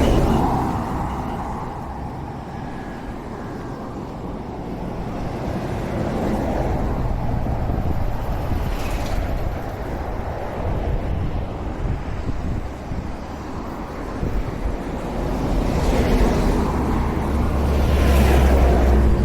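Road vehicles passing one after another, the tyre and engine noise swelling at the start, about halfway and near the end, with wind rumbling on the microphone.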